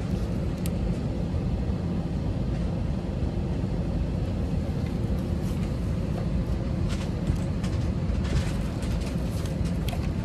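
Steady low rumble inside an airliner cabin, with a few faint clicks.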